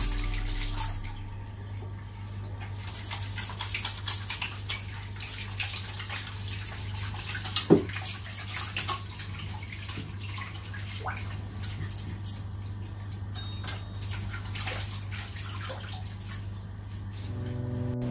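Water running from a bathroom sink tap onto hands being washed under it, with splashing and drips, over a steady low hum. Music comes back in near the end.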